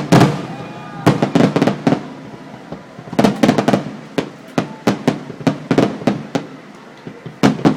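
Fireworks show going off in rapid volleys of sharp bangs and crackles. Clusters of reports come about every second or two, with quieter spells between them.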